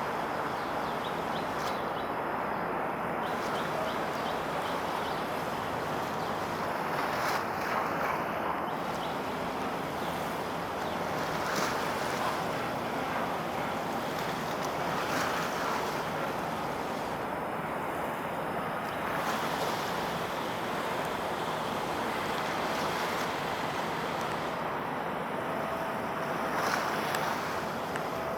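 Outdoor waterfront noise of wind on the microphone and waves washing, a steady rush that swells about every three to four seconds.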